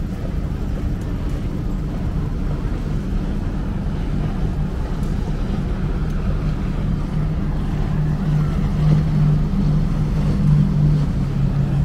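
Motorboat engine running out on the water, a steady low hum that grows louder over the last few seconds as the boat comes past.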